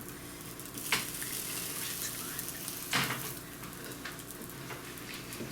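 Egg-washed eggplant slices frying with a steady sizzle, with two short clicks about one and three seconds in.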